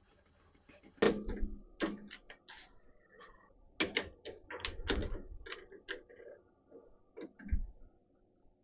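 Metal knocks and rattles from a lathe chuck being worked by hand while a workpiece is changed and round bar is clamped in the jaws. There is a sharp knock about a second in, then a string of irregular clunks and clicks, and a dull thud near the end.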